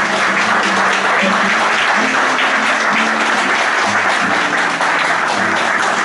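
Audience applauding steadily, with a guitar playing low notes underneath.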